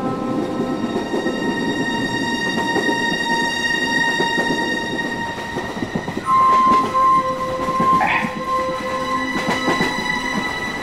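Passenger train running, a rattling rumble under steady held tones, with two short, loud horn blasts a little past the middle.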